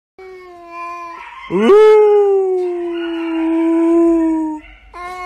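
Long, drawn-out howling notes: a short steady one, then one that swoops sharply up and is held for about three seconds, then another beginning near the end.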